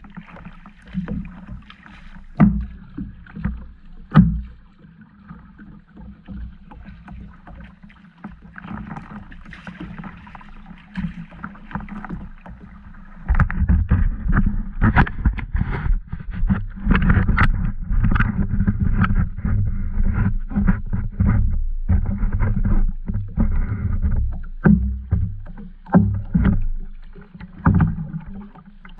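Kayak paddling: paddle strokes in the water with many sharp knocks and clicks against the plastic hull. It gets louder and busier about halfway through.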